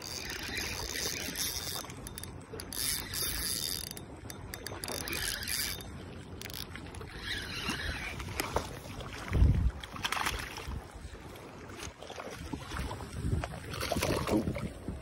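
Spinning reel being cranked as a soft-plastic lure is retrieved, with a mechanical whirring and clicking. A loud low thump comes about nine and a half seconds in.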